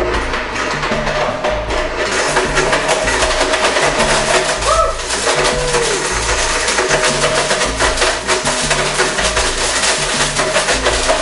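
Blendtec blender running at speed, with chunks of ice and a broken-up LED module rattling and clattering rapidly against the jar, under background music with a steady beat.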